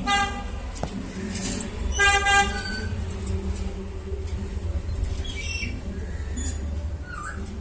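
African grey parrot giving two horn-like toots, each lasting under a second and about two seconds apart, then a few short high chirps and whistles.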